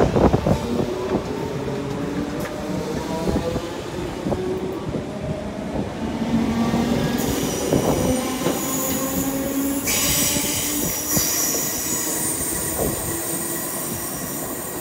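Southern Class 313 electric multiple unit pulling away, its motors whining up in pitch as it gathers speed. High-pitched wheel squeal comes in about halfway through.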